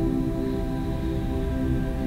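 Soft ambient new-age background music of steady, sustained tones.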